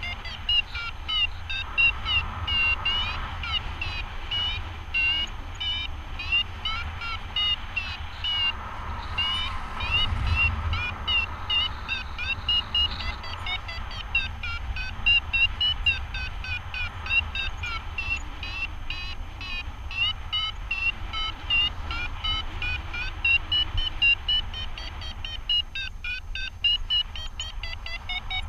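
Paragliding variometer beeping rapidly in short high pitched tones, the sound it makes in rising air, thinning out briefly near the end, over a low rumble of wind on the microphone.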